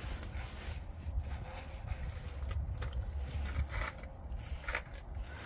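Old engine oil pouring from the open drain-plug hole of a 2006 Mercury Grand Marquis's oil pan into a drain pan, a steady stream of liquid noise under a low rumble, with a few faint knocks.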